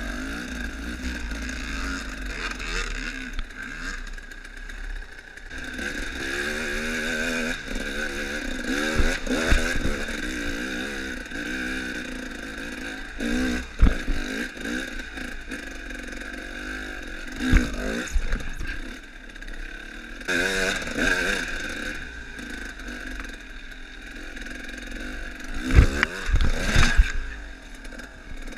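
Dirt bike engine revving up and down as the bike is ridden over a rough trail, with several sharp knocks from the bike hitting bumps and obstacles, loudest about 14 and 26 seconds in.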